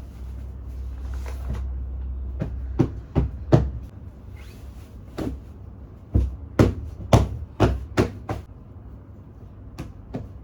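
A series of about a dozen sharp knocks and clacks, irregular and bunched in the middle, over a low rumble in the first few seconds.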